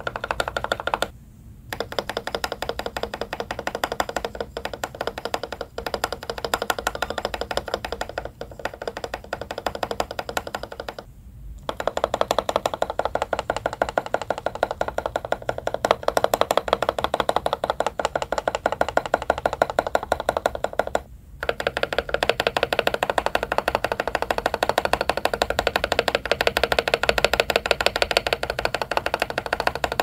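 Mechanical keyboard spacebar being pressed rapidly and repeatedly: a Gazzew Boba U4T tactile switch on an aluminium plate, with lubed MKID Holy Panda plate-mount stabilizers. The presses come in runs separated by three brief pauses, and the spacebar keycap changes between XDA, OEM and SA profiles.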